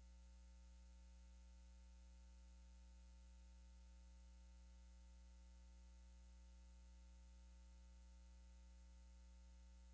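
Near silence: a faint, steady low hum with no other sound.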